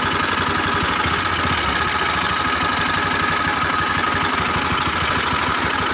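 Bajaj Pulsar NS200's single-cylinder engine idling steadily with a rapid, even mechanical clatter. This is the abnormal engine noise the owner is presenting as a problem.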